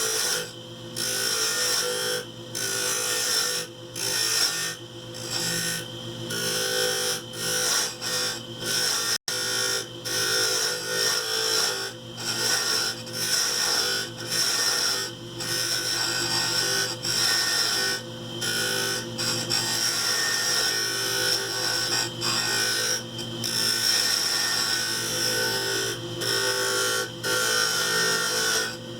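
Wood lathe running steadily while a turning tool cuts a spinning laminated-wood handle blank, the scraping hiss of the cut coming and going as the tool is pressed in and eased off. The sound cuts out for an instant about nine seconds in.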